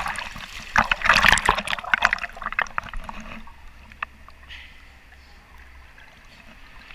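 Swimming-pool water splashing and sloshing, heavy with many sharp splash ticks for about the first three seconds, then settling to faint lapping with an occasional drip.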